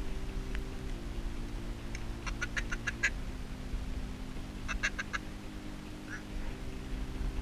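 Ducks quacking in two short, rapid series, one about two seconds in and another near the five-second mark.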